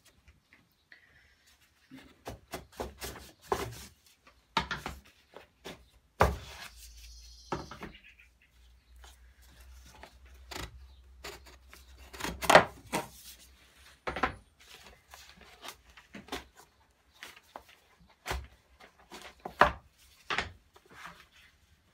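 Wooden soap slab mould being taken apart by hand: irregular knocks, clunks and rubbing as the pins and wooden side panels come away from the silicone liner. The loudest clunk comes about halfway through.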